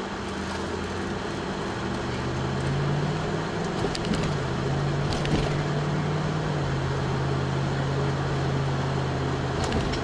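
Car engine hum and road noise heard from inside the cabin while driving. The engine note climbs in pitch about two to three seconds in, then holds fairly steady and steps down a little past the middle.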